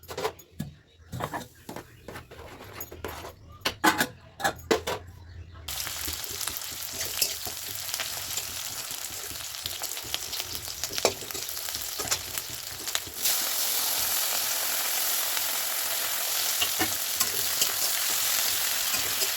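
Food frying in oil in a pan: a steady sizzle with occasional clicks of a spoon stirring, preceded by several sharp knocks and clatters of utensils against the pan. The sizzle sets in suddenly and grows louder about two-thirds of the way through.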